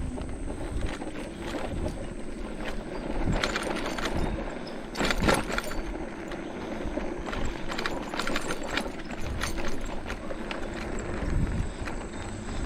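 Electric bike rattling and knocking as it rides over a rough trail, with irregular clunks and rattles throughout.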